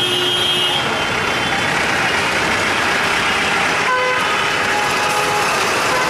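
Busy road traffic with trucks and a bus passing close by, engines running over steady road noise. Vehicle horns toot, once near the start and again about four seconds in.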